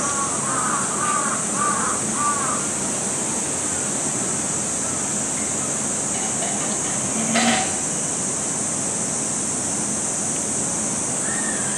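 A steady high-pitched chorus of summer cicadas. Over it, a bird calls in a quick series of short notes during the first two seconds and again near the end. A single knock sounds about seven seconds in.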